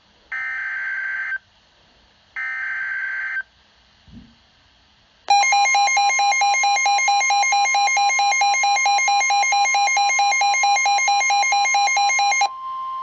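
Emergency Alert System SAME header: three short bursts of data tones, about a second each, with gaps between them. They are followed by about seven seconds of a loud, pulsing two-pitch alert tone that drops to a single steady tone near the end, announcing the start of a new warning.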